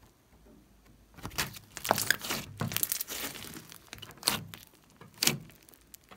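Pink slime being pressed and kneaded by hand: a run of sticky crackles and squelches starts about a second in, followed by two single pops about a second apart near the end.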